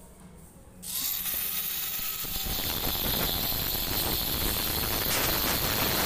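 A ratchet wrench clicking at the centre hub of a top-load washing machine's inner drum, loosening the small 10 mm check nut, over a steady hiss that starts suddenly about a second in.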